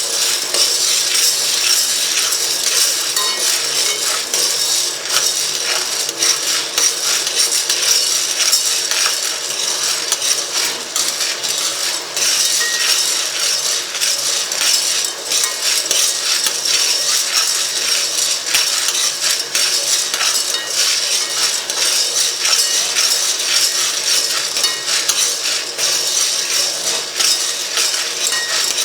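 Steady, dense clatter of many small hard objects knocking and clinking together, like dishes and metal utensils.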